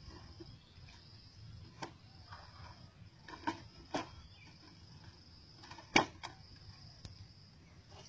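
Faint, steady high-pitched insect chirring, with a few sharp clicks and knocks scattered through it. The loudest knock comes about six seconds in.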